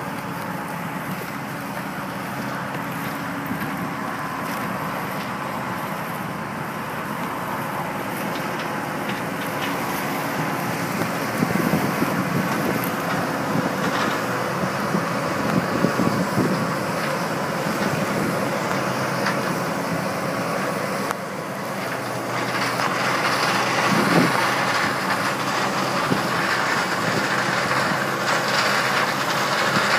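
John Deere combine harvester running steadily as it cuts and threshes standing corn with its corn head, growing louder as it comes closer. From about two-thirds of the way through it becomes louder and rougher.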